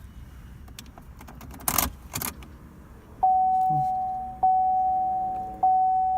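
Keys jangle briefly, then a Chevrolet Sonic's dashboard warning chime starts about three seconds in with the ignition switched on: a single-pitched ding repeating about once every 1.2 seconds, each fading before the next.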